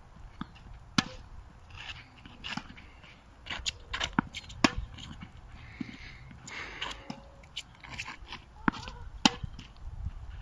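Tennis rally on an outdoor hard court: rackets striking the ball and the ball bouncing off the court, a string of sharp pops about a second or more apart, some in quick pairs.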